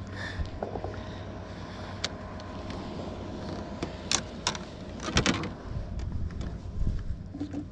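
Boat motor running steadily with a low hum, with a few sharp clicks and knocks about four to five seconds in.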